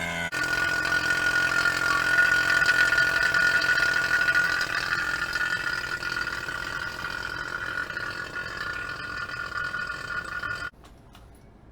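A machine running with a steady high whine and a lower hum beneath it, cutting off suddenly near the end.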